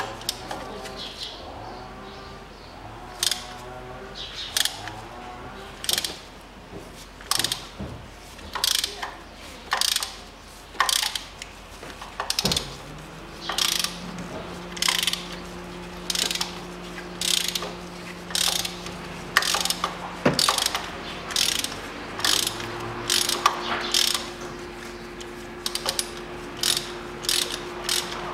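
Socket ratchet clicking in short, irregular runs as spark plugs are worked out of the Mitsubishi Colt's 1.5-litre 4G15 engine. The plugs have not been out for a long time.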